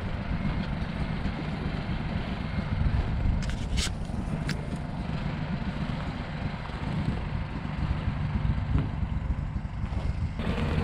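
A vehicle driving across snow-covered lake ice: a steady low rumble, with a few brief clicks about four seconds in.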